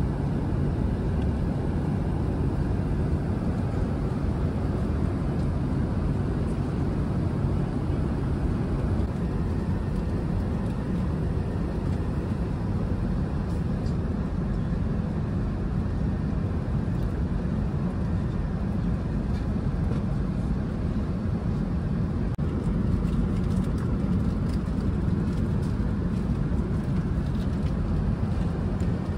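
Steady cabin noise of an Airbus A380 in flight: an even, deep rush of engine and airflow noise heard from an economy seat.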